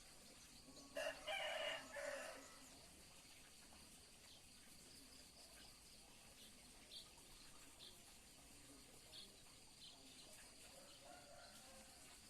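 A rooster crowing once, about a second in, a single crow lasting about a second and a half.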